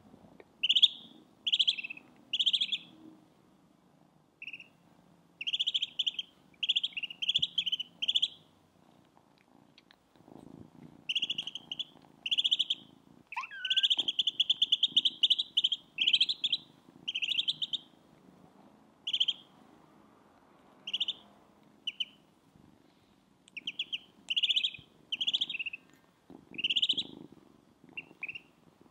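Ducklings peeping in clusters of rapid, loud, high cheeps, with a kitten purring faintly and low underneath.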